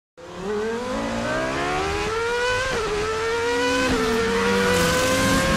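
A car engine accelerating hard, its pitch climbing steadily and dipping briefly twice, about two and a half and four seconds in, as it shifts up a gear, then climbing again.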